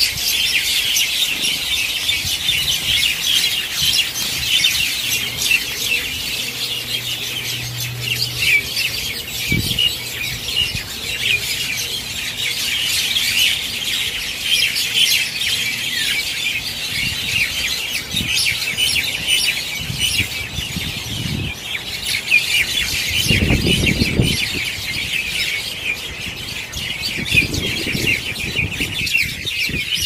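Dense evening chorus of many small birds gathering to roost, chirping and twittering without a break. A few brief low rumbles come in the second half.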